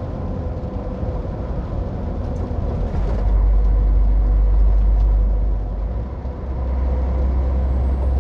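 Heavy truck's diesel engine running, heard inside the cab as a steady low drone. It grows louder about three seconds in, eases briefly around six seconds, then picks up again.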